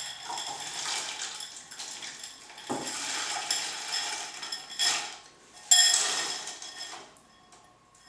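Frozen mixed vegetables tipped from a glass bowl into a stainless steel saucepan, clattering into the pan for several seconds. Several sharp knocks come in the middle. The loudest comes a little before six seconds in.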